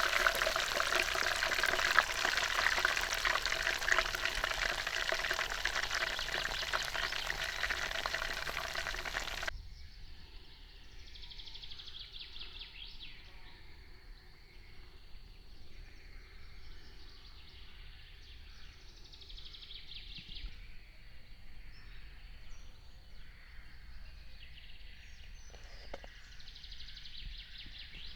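Chicken sizzling and crackling over a cooking fire, a dense spitting hiss. About a third of the way in it cuts off suddenly to quiet outdoor ambience with faint high bird calls every few seconds.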